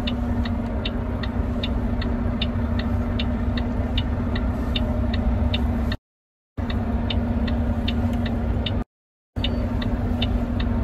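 Semi-truck diesel engine running at idle inside the cab as the rig creeps forward, with a steady light ticking a little over twice a second. The sound cuts out twice briefly in the second half.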